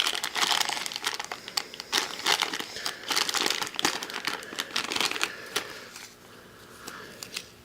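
Crinkly wrapper packaging being crumpled and torn open by hand: a dense run of irregular crackles that dies down about six seconds in.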